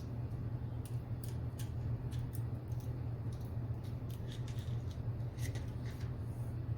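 Scattered light clicks and taps from handling small integrated-circuit chips and parts, over a steady low hum.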